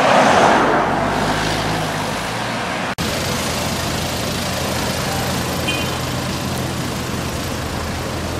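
Street traffic noise, loudest in the first second as a vehicle passes close. After a cut, a Ferrari 599 GTO's 6.0-litre V12 idles steadily with street traffic around it.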